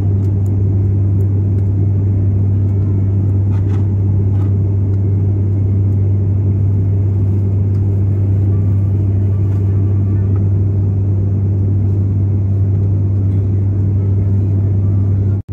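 Cabin drone of an ATR 72-600's PW127M turboprop engines and six-bladed propellers in cruise: a steady, loud rumble with a strong low hum. The sound cuts out for an instant at the very end.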